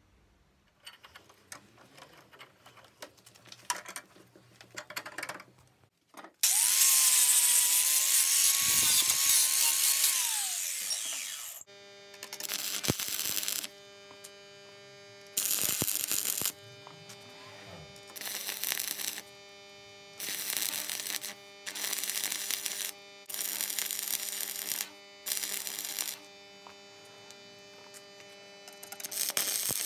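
Electric power tool at work: after some light scraping and clicking, a long loud cutting run whose motor pitch sags under load and recovers. Then a steady motor hum with a series of short bursts of cutting or grinding noise, each a second or two long.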